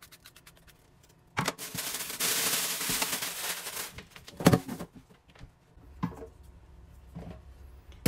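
A small brush scrubbing the pleated filter of a handheld vacuum cleaner in quick, rapid strokes. About a second and a half in comes a couple of seconds of loud, even rustling noise, followed by a few sharp knocks against a stainless steel sink.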